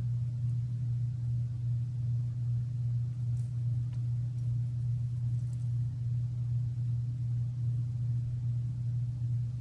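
Steady low hum that does not change, with nothing else standing out.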